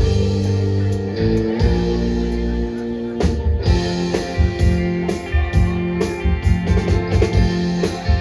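Live rock band playing an instrumental passage between sung verses: guitar over bass and a drum kit keeping a steady beat.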